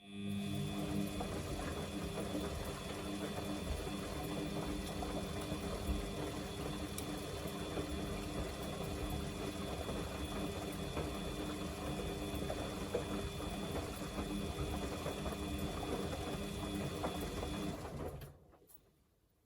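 Samsung washing machine running on a darks 40°C wash: its motor starts suddenly with a steady whirring hum and turns the drum for about 18 seconds, then winds down and stops.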